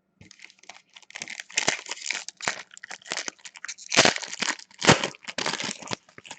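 Foil wrapper of a hockey card pack crinkling and tearing as it is handled and opened, with sharper crackles about four and five seconds in.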